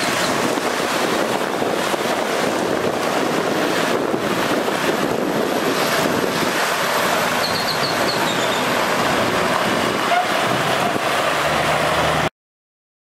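Water truck's rear spray bar spraying water onto the gravel while the truck drives slowly away: a steady rushing hiss, with the Cummins ISC diesel engine running underneath. It cuts off suddenly near the end.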